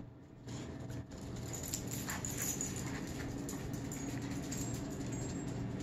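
Corgi walking about on a bare concrete floor, its claws clicking faintly, over a steady low hum.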